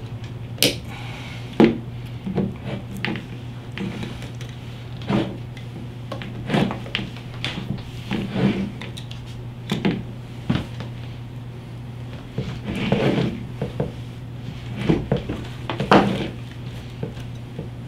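Scattered short knocks, clicks and rubbing from hands working a motorcycle handlebar and pulling wiring through it on a wooden bench, over a steady low hum.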